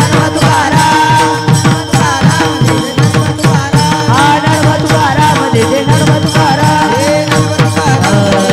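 Varkari devotional bhajan: a lead singer and chorus chanting to a fast, steady beat of brass taal hand cymbals and a barrel drum.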